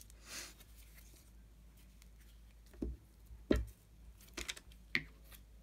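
Paper handled on a craft table: a brief soft rustle, then four or five light knocks on the tabletop, the loudest about three and a half seconds in.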